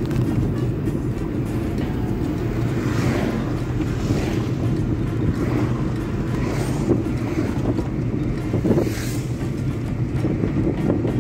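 Road noise inside a moving car: a steady low engine and tyre rumble, with several brief whooshes of oncoming traffic going by between about three and nine seconds in.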